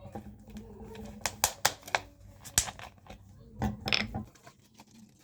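A series of sharp mechanical clicks and knocks, with a louder cluster about four seconds in, over a low steady hum that cuts off just after.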